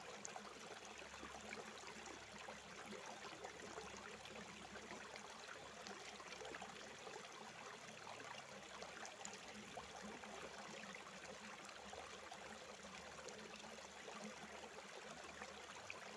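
Faint, steady sound of a small rocky stream, water running and trickling over stones.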